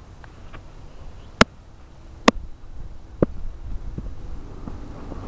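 Three sharp knocks close to the microphone, about a second apart, then a fainter one, over a low rumble.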